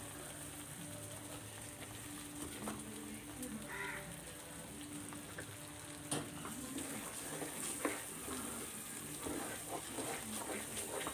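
A thick mixture of grated coconut and sugar, with ghee, cooking in a pan and being stirred: a soft, steady sizzle with scattered scrapes and taps of the spoon against the pan.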